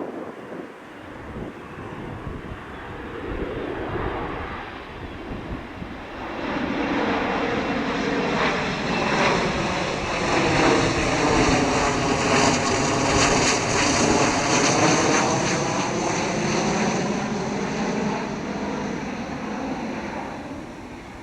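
Jet airliner passing low overhead. Its engine noise builds about six seconds in, peaks in the middle with a high steady whine above the rumble, and eases off near the end.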